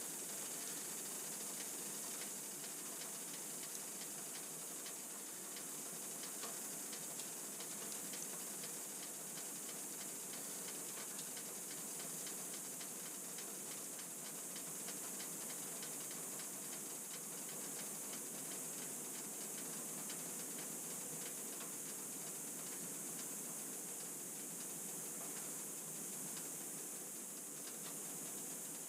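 Pine fire burning in a wood stove with the air vent fully open: a steady hiss of the draft with many faint crackles.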